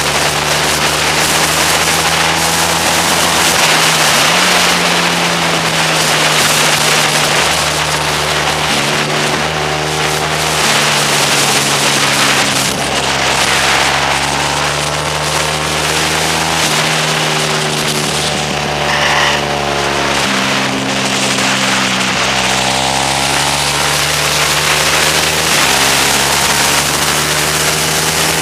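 Motorcycle engine at racing speed, its pitch climbing and then stepping down again and again as the rider works through the gears and corners. Heavy wind rush over the microphone runs under it.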